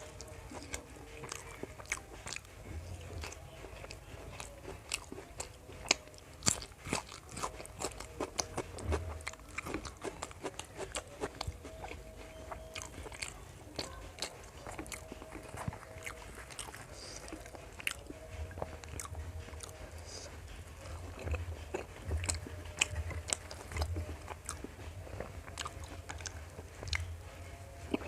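A person eating close to the microphone: irregular crunchy bites and chewing with wet mouth clicks, from a meal of puris, chole and crispy onion rings.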